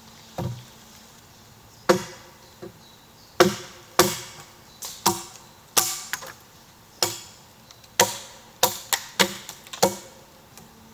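A hand tool striking wood, about fifteen sharp, irregular blows, each with a short ring. The blows come faster near the end.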